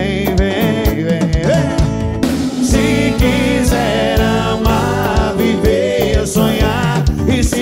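Band music with a steady beat: drums and bass under a melody line.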